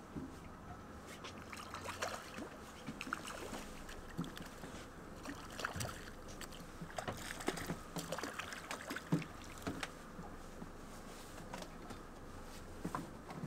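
Water lapping against a small boat's hull, with irregular small knocks and clicks scattered throughout.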